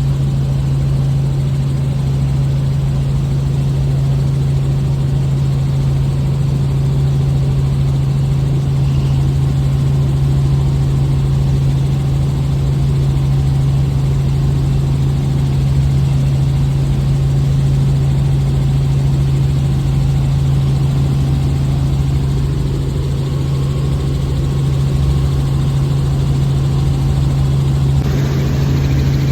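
Helicopter running, heard from inside the cabin: a loud, steady drone of rotor and engine with a strong low hum.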